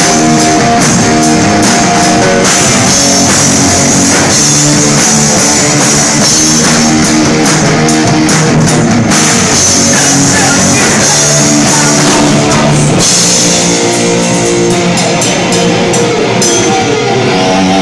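Rock band playing live and loud: electric guitar, bass guitar and drum kit with frequent cymbal hits. Near the end the instruments slide down in pitch together.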